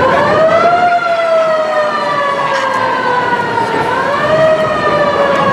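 A vehicle siren wailing. Its pitch rises over the first second, falls slowly, then rises and falls again about four seconds in.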